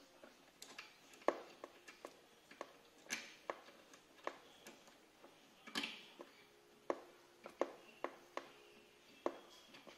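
Scattered light clicks and taps, about one every half second to second, from a small metal screw being threaded in by hand and the ignition coil's bracket knocking against the scooter frame as the coil is fastened.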